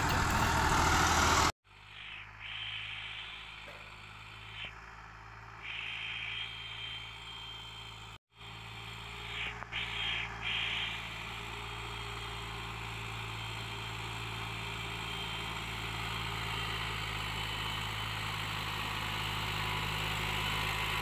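Farm tractor's diesel engine running steadily, getting gradually louder as it comes closer. The sound drops out briefly twice where the footage is cut.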